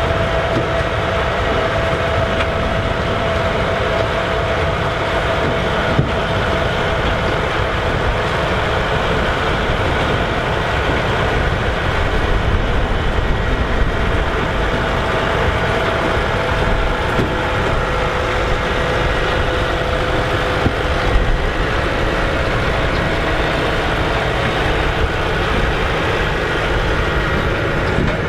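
Massey Ferguson 3070 tractor's diesel engine running steadily under work, a continuous loud drone with a steady whine. There are a couple of brief knocks from the machinery.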